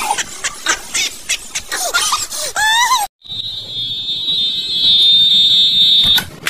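Voices with sharp clicks, then, after a brief gap, a loud, steady high-pitched tone that lasts about three seconds and ends at a click.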